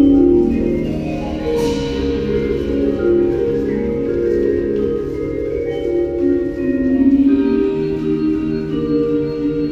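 High school indoor drumline's front ensemble playing a slow passage of held chords on mallet percussion (marimbas and vibraphones). A cymbal rings out and fades about one and a half seconds in.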